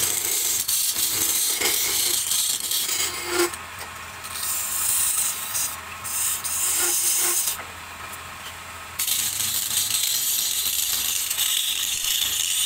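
Turning chisel cutting a spinning wooden blank on a wood lathe: a hissing scrape as shavings peel off, in three long cuts with two short pauses between them, over a faint low hum.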